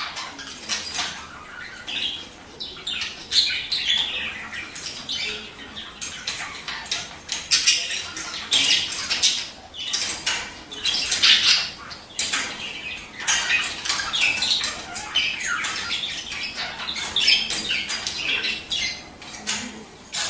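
Budgerigars calling: many short, harsh, scratchy chirps and squawks in irregular bursts, with some wing flutter.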